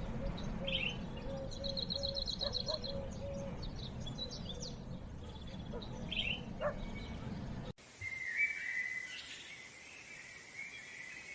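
Birds chirping with short, high calls and trills over steady background noise. About two-thirds of the way through, the sound cuts abruptly to a quieter recording with a high, wavering tone.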